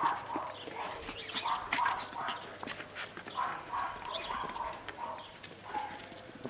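West Highland white terrier puppies giving short, high yips and whimpers, one every second or so, with light clicking and tapping among them.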